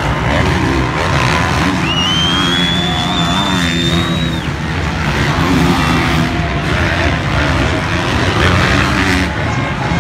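Several motocross bike engines revving up and down as the riders race around the track, over a crowd murmur. About two seconds in, a high whine rises slowly for about two seconds and then stops.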